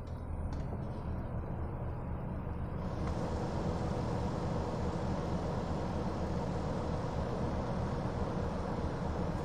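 Datsun Go's three-cylinder engine idling, heard from inside the cabin, while the air-conditioning blower is switched up: a few clicks of the fan knob, then about three seconds in the rush of air from the dashboard vents grows suddenly louder and stays steady.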